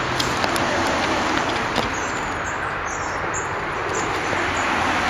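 A few short, faint high calls of long-tailed tits, about two to four seconds in, over a steady rushing background noise.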